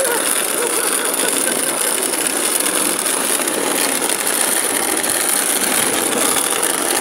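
Wheels of a wooden rolimã cart rolling over rough pavement under a heavy load, a steady grinding rumble.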